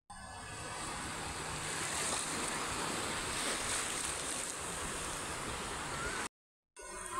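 Small waves washing up on a sandy beach: a steady rush of surf, broken by a short dead-silent gap near the end.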